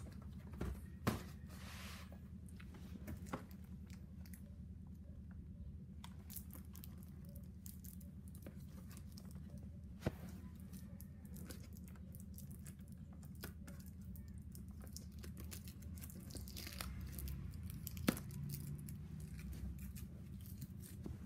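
Hands handling a cardboard figure box and its packaging: rustling, scraping and a few sharp taps and knocks, over a steady low hum.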